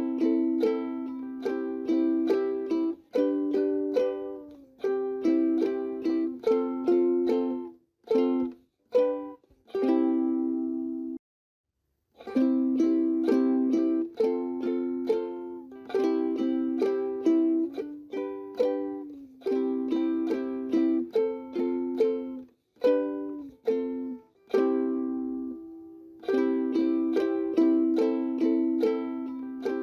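Background instrumental music of quickly fading plucked string notes, breaking off for about a second around eleven seconds in.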